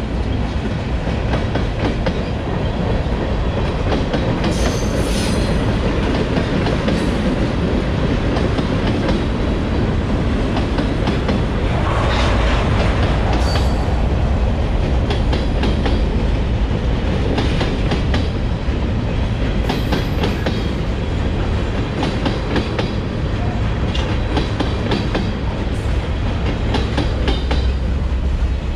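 Freight train cars rolling past, their wheels clicking steadily over rail joints, with a brief higher-pitched wheel screech about twelve seconds in.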